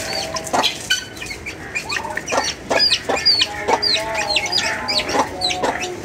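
Chickens clucking in a backyard flock, with short, high, falling chirps repeating about twice a second from the second second on.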